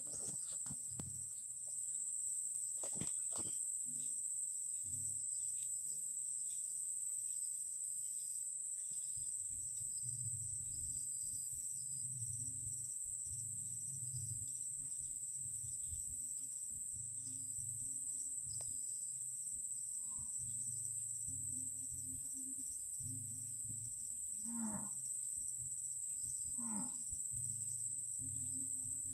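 Steady high-pitched insect buzzing over a rice field, with a low hum that comes and goes every second or two and two short calls near the end.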